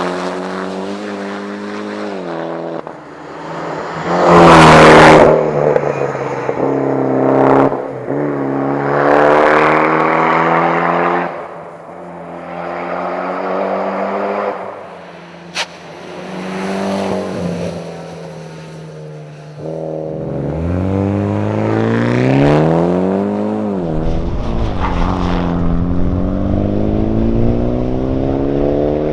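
Mitsubishi Lancer Evolution X rally car's turbocharged 2.0-litre four-cylinder engine driven hard. Its pitch climbs under acceleration and drops back on gear changes and lifts, again and again. A loud rushing burst comes about four seconds in, and a sharp click near the middle.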